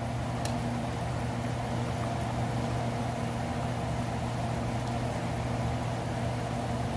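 Steady low mechanical hum with a light even hiss over it, and one faint click about half a second in.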